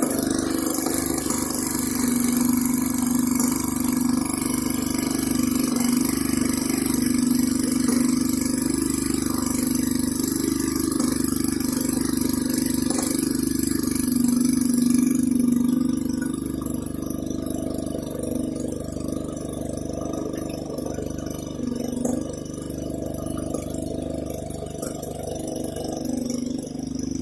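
Maytag 72D two-stroke gasoline engine running steadily, driving an antique wringer washer whose rolls turn as clothes are fed through. It gets a little quieter about halfway through.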